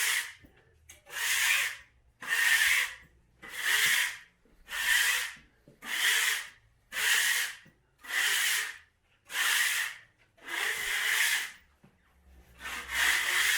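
A hand tool stroked back and forth over a drywall butt joint, about one stroke a second, each a short dry swish, with a brief pause near the end.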